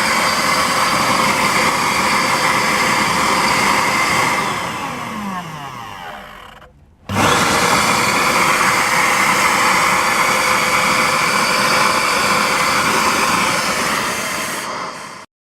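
Bosch GAS 20 L SFC vacuum cleaner motor running on its freshly rewound armature during a test run. It is switched off about four seconds in, its pitch falling as it winds down, then switched back on about seven seconds in and runs steadily until it cuts off suddenly near the end.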